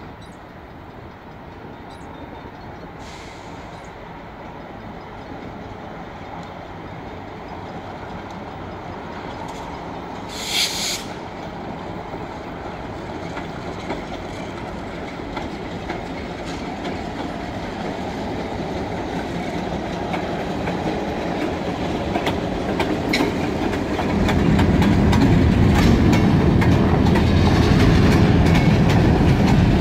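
Diesel freight locomotive hauling boxcars, its engine and wheels growing steadily louder as it approaches, then much louder about 24 seconds in as it passes close by. A brief high-pitched sound cuts in once, about ten seconds in.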